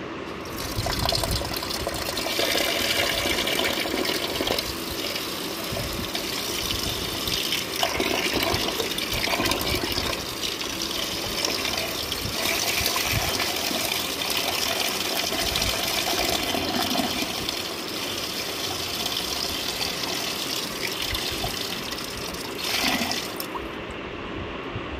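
Water pouring from a pipe into a clay pot of anchovies, splashing as a hand swishes the fish around to rinse them; the flow stops about a second before the end.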